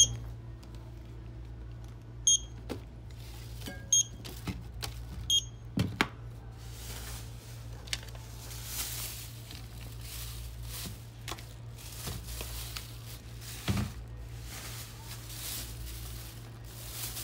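Checkout barcode scanner beeping three times, about a second and a half apart, as items are scanned, followed by the rustling of a plastic shopping bag as they are bagged, with a couple of knocks of items being set down.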